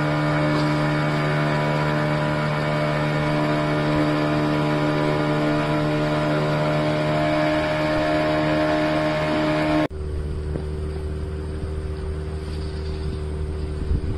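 Motorboat engine running at a steady speed, a constant drone with a fixed pitch. About ten seconds in it cuts abruptly to another stretch of engine drone that is slightly quieter and deeper.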